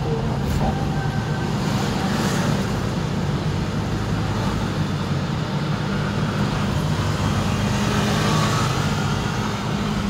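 Steady hum of engine and tyres heard from inside a moving car's cabin.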